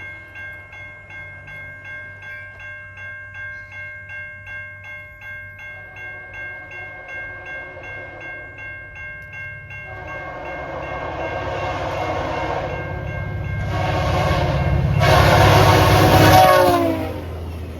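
Level-crossing bell ringing at about two to three strokes a second as a VIA Rail passenger train approaches. About ten seconds in, the locomotive horn sounds a long blast, then a second, louder blast as the train passes at speed over a rising rumble of wheels on rail. The horn's pitch drops as the train goes by.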